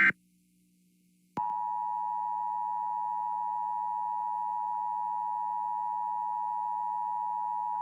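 A burst of EAS SAME header data tones cuts off at the very start. After about a second of silence, the Emergency Alert System's two-tone attention signal (853 and 960 Hz) comes on suddenly and holds steady and loud.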